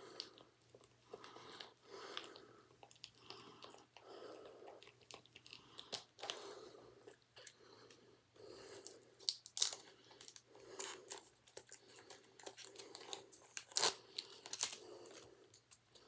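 Plastic wrapping on a DVD case crinkling and tearing as it is picked at and pulled off, with scattered sharp clicks and crackles.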